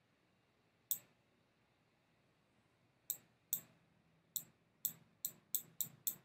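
Computer mouse clicking as drawing strokes are made: about nine short, sharp clicks, a single one about a second in, then a run that comes faster toward the end.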